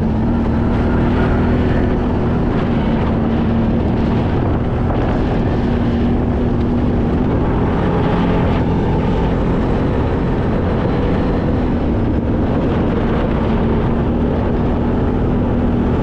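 Off-road side-by-side engine running steadily while driving on a trail. It is a constant drone that holds nearly one pitch, with a slight dip about halfway through.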